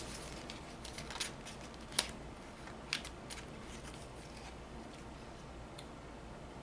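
Thin cardboard lipstick box being opened and torn by hand: a few faint crinkles and sharp paper clicks, the sharpest about two seconds in.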